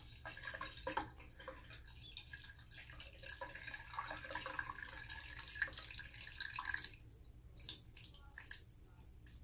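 Liquid drain opener poured from a plastic bottle into a bathtub drain, a thin stream trickling and splashing into the drain opening. It thins to a few scattered drips about seven seconds in.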